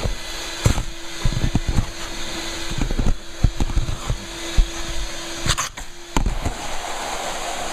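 Vacuum cleaner running with a steady hum, with repeated knocks and thumps over it. The hum breaks off for a moment near the end.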